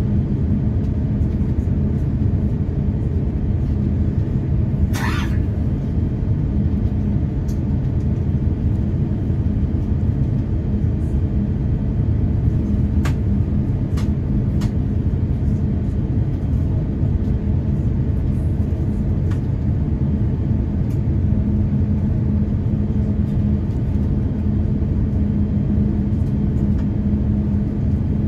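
Cabin noise of an Airbus A350-1000 taxiing: a steady low rumble from its Rolls-Royce Trent XWB-97 engines at taxi thrust, with a constant hum through it. A few faint clicks and a brief rustle about five seconds in.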